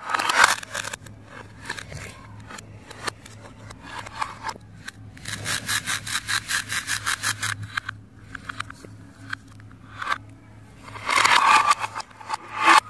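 Velcro joins of plastic toy fruit and vegetables being pulled and cut apart with a plastic toy knife on a plastic cutting board, tearing in crackly rips with plastic scraping between them. A long run of rapid ticks about five seconds in, and a louder, denser rip near the end.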